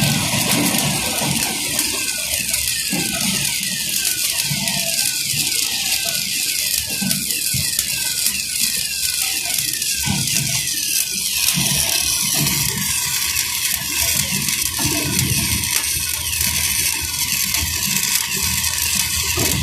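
Electric arc welding: the steady crackling hiss of a stick-welding arc, with a faint falling tone repeating about twice a second through the first half.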